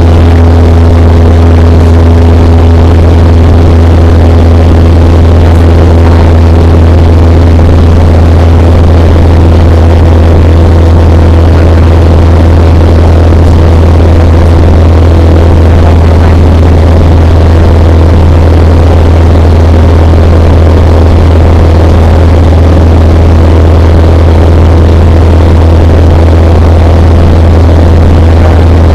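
Cessna 172 Skyhawk's piston engine and propeller running steadily in flight, a loud, unchanging drone heard from inside the cabin.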